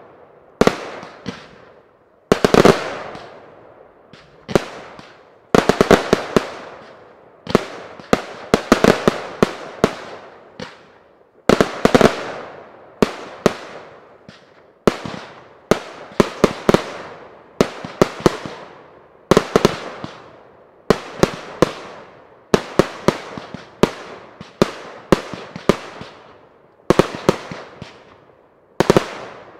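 Professional fireworks display, firework batteries firing: loud sharp bangs in quick clusters every second or so, each group dying away in echo.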